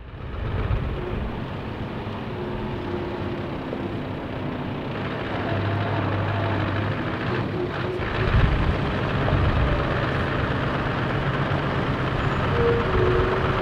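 Scania V8 trucks driving slowly toward the listener over gravel, their diesel engines rumbling steadily and growing louder as they approach, with a step up in loudness about eight seconds in.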